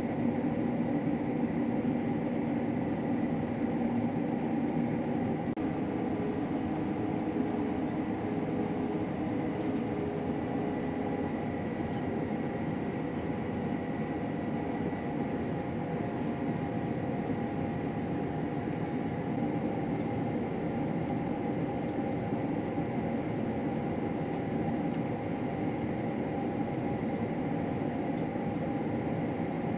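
Combine harvester running steadily while harvesting wheat: a continuous machine drone with several held tones in it.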